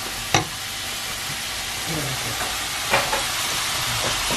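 Small dried anchovies sizzling as they are stir-fried in a nonstick pan, a wooden spatula stirring and scraping through them. Two sharp taps, about a third of a second in and near three seconds.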